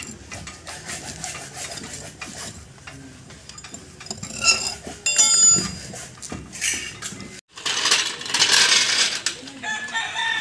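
Metal clinking and tapping as lug nuts and socket tools are handled at a pickup truck's wheel, with chickens calling in the background. The loudest clatter, with a ringing tone, comes about halfway through.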